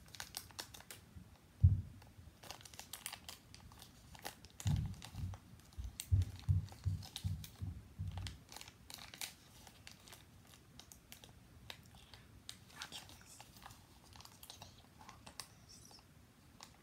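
A small toy's wrapper being crinkled and torn open by hand, with scattered crackles and a few low thumps. The loudest thump comes about a second and a half in, and a run of low bumps follows around the middle.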